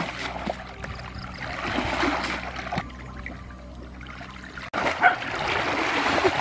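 Shallow muddy water splashing and sloshing as someone wades and gropes through it by hand, in irregular bursts that grow louder near the end.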